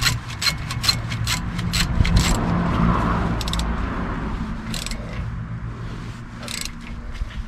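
Ratchet with a 10 mm socket clicking as a brake caliper bolt is tightened: a quick run of clicks over the first two seconds, then a few single clicks. Under it a vehicle passes, its rush rising and fading, loudest two to three seconds in.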